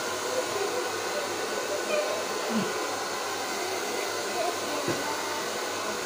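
Handheld electric hair dryer running steadily, blowing air onto long hair.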